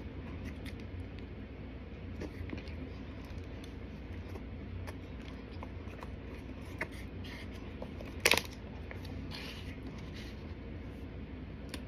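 Plastic fork scraping and clicking against a clear plastic clamshell takeout container, in scattered light strokes, with one short, sharp crackle about eight seconds in.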